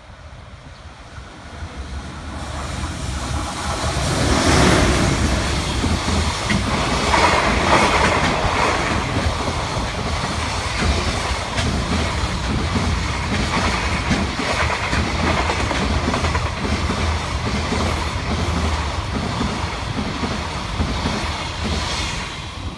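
EH500 electric locomotive hauling a freight train through a station at speed: the sound builds over the first few seconds as the locomotive comes past, then the long line of freight wagons runs by with steady wheel clatter over the rail joints, dropping away near the end.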